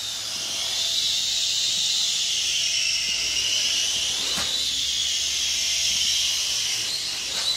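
Syma X1 toy quadcopter in flight: its four small brushed motors and propellers make a high, buzzing whine that drifts up and down in pitch with motor speed. A single short knock about halfway through.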